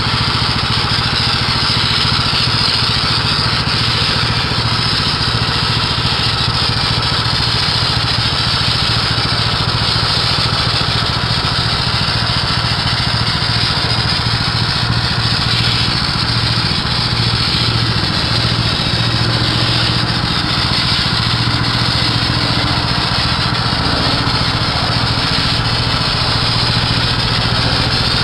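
An engine running steadily at constant speed, with a continuous low hum and no change in pace.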